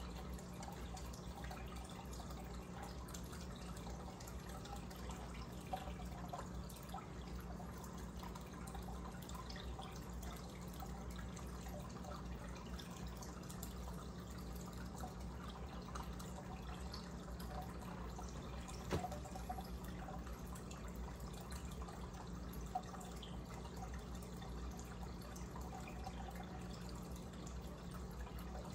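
Aquarium air stone bubbling steadily, a fine fizzing trickle of bubbles breaking at the water's surface, over a steady low hum. A single light tick about two-thirds of the way through.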